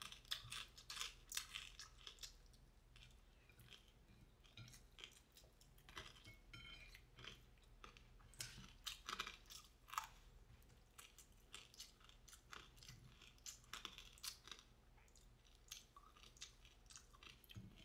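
Faint chewing of crispy garlic fried chicken and rice, close to the microphone: many short, irregular crunches.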